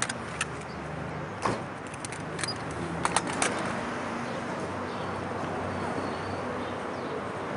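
Urban street ambience: a steady low hum of traffic, with a handful of sharp clicks and knocks in the first three and a half seconds.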